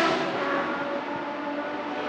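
Racing engines of Ford Capri RS 3100 Group 2 cars, Cosworth GAA 3.4-litre V6s, fading and dulling into a distant drone in the first second after a close pass.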